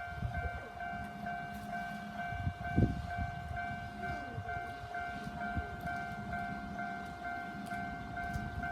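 Japanese level-crossing warning bell ringing in a low pitch, repeating about twice a second, over the low rumble of a train passing on the Nankai Koya Line.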